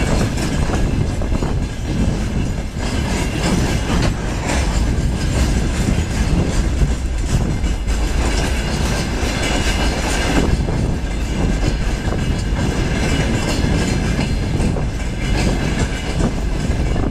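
Freight train wagons, tank cars and then open gondolas, rolling steadily past: a continuous low rumble with the wheels clacking over rail joints.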